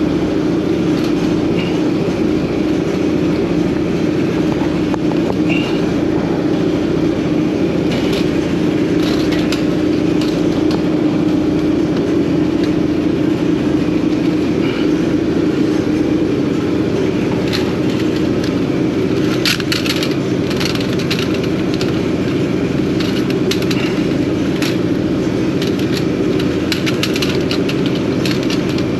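An engine running steadily, a constant drone with a regular low pulse, with scattered clicks and knocks that come thickest in the second half.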